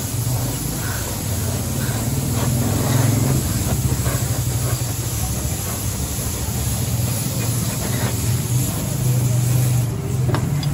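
Compressed-air paint spray gun hissing as it sprays paint, over a steady low motor hum.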